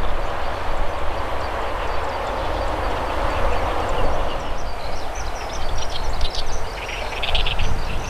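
Zitting cisticola calling: a rapid series of short, high notes in the last few seconds, over a steady rumble and hiss of background noise.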